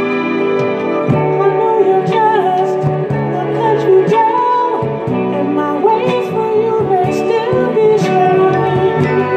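Soul ballad music: a wordless vocal melody over string backing.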